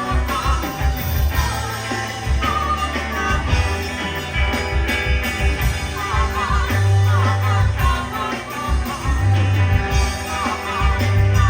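Rock band playing live: electric guitar over bass guitar and drums, the guitar carrying a wavering melodic line.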